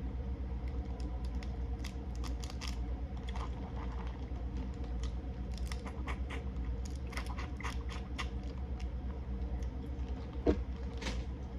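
Small clicks and cracks of seafood-boil shells being broken open and picked at by hand, irregularly spaced, with a louder snap about ten and a half seconds in, over a steady low hum.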